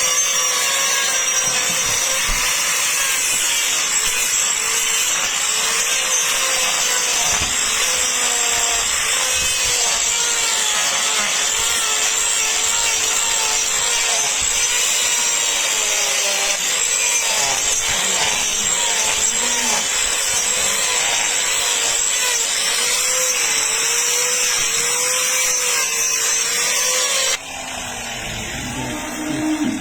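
A handheld power cutter, called a chainsaw, cutting into a cow's hoof horn. Its motor pitch wavers as the cutter bites and eases, and it stops suddenly near the end.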